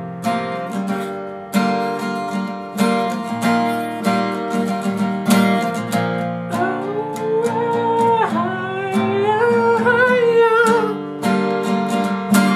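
Acoustic guitar strummed in a steady rhythm, with a wordless sung line over it from about halfway to near the end.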